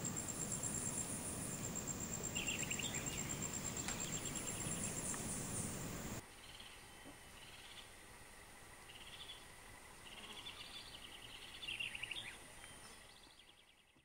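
Forest wildlife ambience: insects trill with a steady, high, pulsing tone, and short chirping calls repeat several times. The sound drops quieter about six seconds in and fades out at the end.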